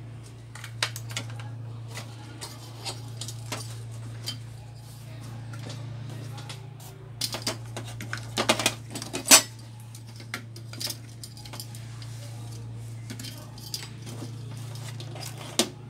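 Clicks and metallic clatter of a TV main board, its sheet-metal bracket and speaker cables being handled and pulled off the back of an LCD TV, with a run of louder clacks about halfway through. A steady low hum runs underneath.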